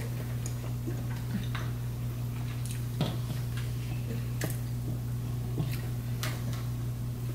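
Eating sounds: irregular small clicks and taps of forks on plates and of chewing, over a steady low hum.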